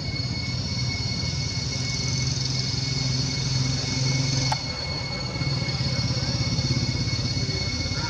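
A vehicle engine running with a steady low hum, which eases about halfway through with a short click. Steady high-pitched tones continue above it.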